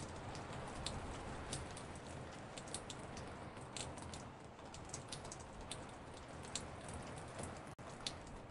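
Recorded raindrops falling on a porch, layered into a patter of many separate drop ticks over a steady rain hiss. The sound cuts out for an instant near the end.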